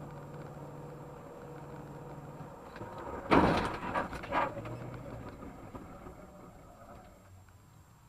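Steady road and engine noise from a car driving on a highway, broken about three seconds in by a sudden loud burst of noise and two shorter ones within the next second, during a near-miss with a car cutting across toward an exit; afterwards the noise fades down.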